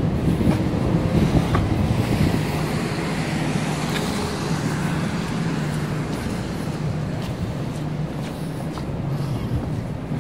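City street traffic: cars running along the street, with a steady low engine hum through most of it and a few faint ticks.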